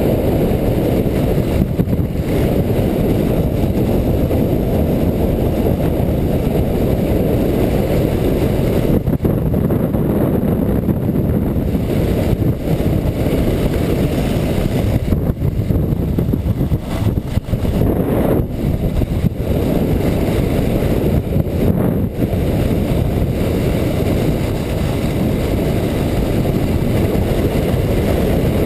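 Low, muffled rush of wind and sliding noise on the GoPro's microphone as the luge sled runs down the packed-snow track at about 30 to 40 km/h, steady throughout with small dips in level.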